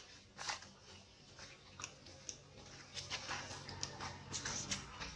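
Long-tailed macaque chewing food and rustling dry fallen leaves as it moves: scattered soft clicks and crackles, more frequent in the second half.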